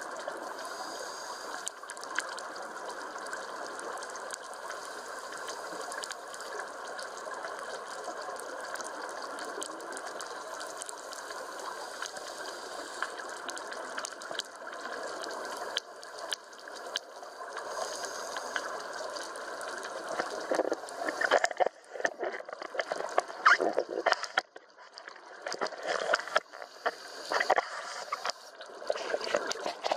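Underwater scuba-dive sound: a steady hiss. From about two-thirds of the way through, loud irregular gushes of bubbles come and go as a diver breathes out through a regulator close by.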